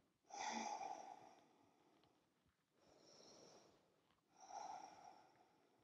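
A woman's soft breathing while she holds a standing yoga pose: a breath about half a second in, a fainter one around the middle, and another near the end, with near silence between them.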